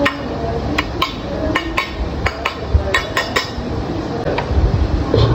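A metal spatula clinking and scraping against a steel wok: a quick run of sharp metal clinks, thinning out after about three seconds, over a steady low rumble.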